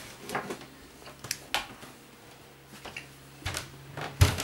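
Household things being handled and packed by hand: scattered light knocks and clicks, about half a dozen, with the loudest knock near the end.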